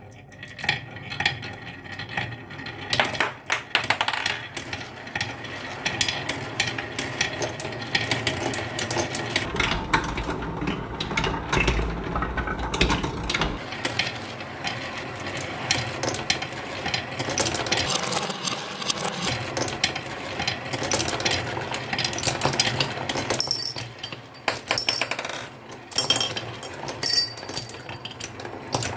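Many marbles rolling and clacking down a wooden marble run track in a dense, continuous clatter, with a few high ringing pings near the end.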